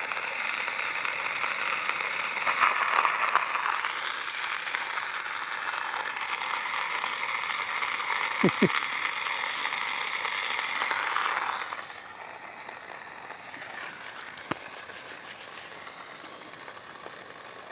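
Electric coffee grinder running, grinding whole coffee beans at a setting between fine and coarse: a steady whirring hiss that stops abruptly about twelve seconds in. Afterwards a faint crackle with a few light ticks.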